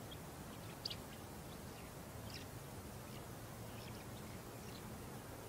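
Faint birds chirping, short scattered chirps, over a steady low outdoor background noise.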